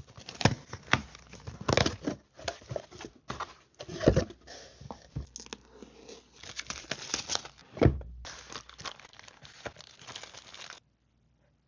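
Packaging being unboxed by hand: crinkling and tearing of wrapping with several sharp knocks of the box, stopping about a second before the end.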